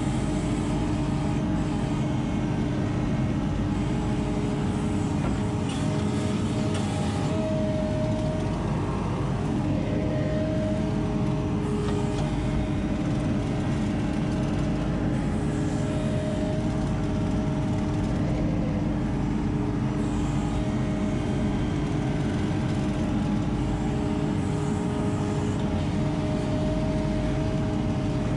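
ASV RT-40 compact track loader's diesel engine running steadily under load, heard from inside the operator's cab. A steady tone sits on top of the engine noise while the loader tracks over sand, grading the driveway.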